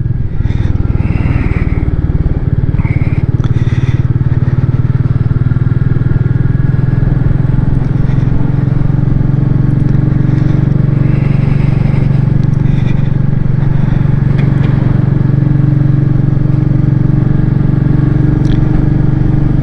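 Royal Enfield Meteor 350's single-cylinder engine running steadily while the motorcycle cruises, over a steady rush of wind and road noise.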